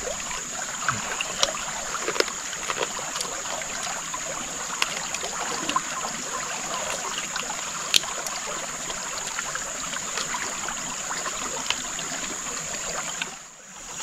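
Steady rush of a nearby river or stream flowing, under a continuous high-pitched whine, with scattered light clicks and taps; the sound dips briefly near the end.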